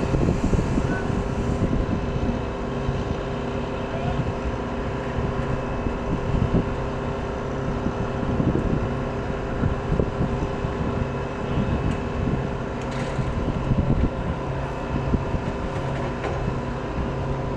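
A steady mechanical hum holding several tones, over an irregular low rumble.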